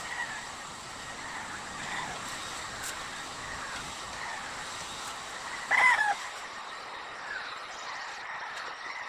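Handheld electric heat gun blowing steadily as it is passed over freshly airbrushed paint to heat-set it and make it more durable. A short pitched animal call, the loudest sound, comes about six seconds in.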